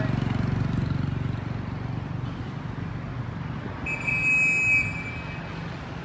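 Street traffic: a motorbike's engine hums close by at the start and fades, and a vehicle horn sounds one steady honk lasting about a second, a little past the middle.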